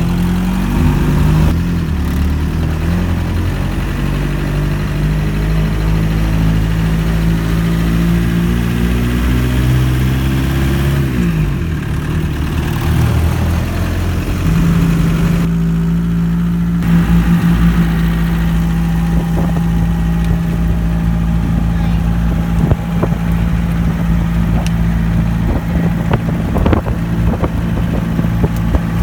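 A Jeep's engine running while driving. Its pitch shifts up and down through the first half, as with acceleration and gear changes, then holds steady at cruise.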